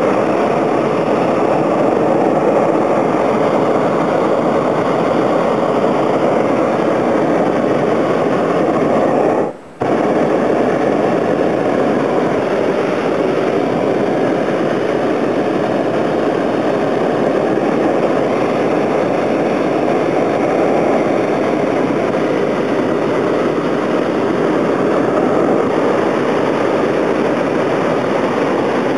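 Hot air balloon's propane burner firing in a long, loud, steady blast, cut off for a moment about ten seconds in and then lit again.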